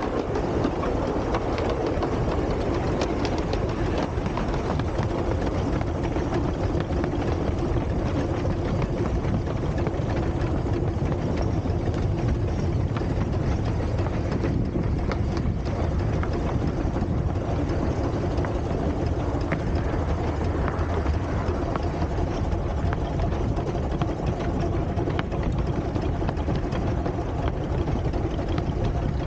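Steady vehicle running noise, heaviest in the low end, with a faint steady hum and no distinct exhaust beats.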